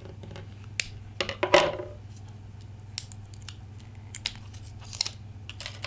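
Scissors snipping the plastic shrink wrap on an AA battery, with a crackly cut about a second and a half in. Then scattered light clicks and crinkles as the wrap is peeled off by hand, over a steady low hum.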